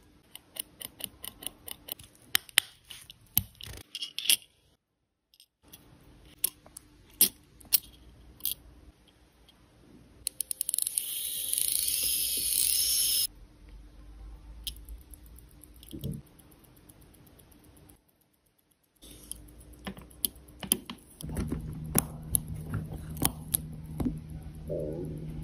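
Small sharp metallic clicks and taps of tweezers and parts on an IWC mechanical watch movement during reassembly, in several short edited clips. In the middle, a burst of hissing lasting about three seconds while the gear train is tested.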